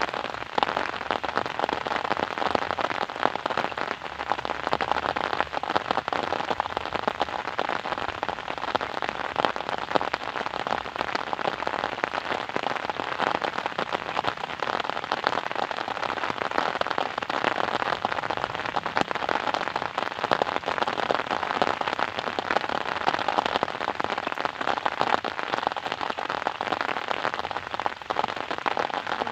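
Steady rain, a dense, even patter of many small drop impacts.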